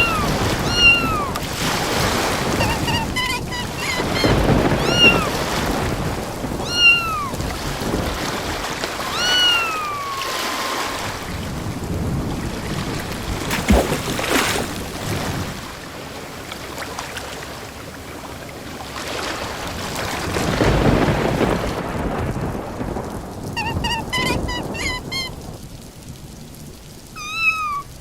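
Kitten meowing over and over through heavy rain and storm noise, with thunder rumbling in swells and one sharp crack about halfway through. Two quick runs of short high squeaks come early on and near the end.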